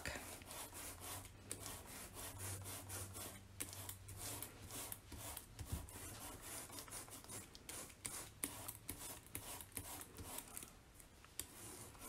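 Foam sponge brayer loaded with ink and rolled over and over across cardstock through a paper template. It makes a faint, crackly rubbing, one stroke after another.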